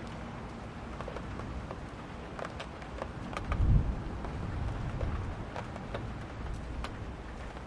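Steady rain falling, with scattered drops ticking on a hard surface. A low thunder rumble swells about three and a half seconds in and fades away.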